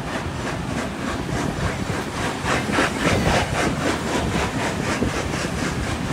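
Steam trains running side by side at speed, heard from an open carriage window: a steady rush of wheel and rail noise with a fast, even beat of about four to five pulses a second.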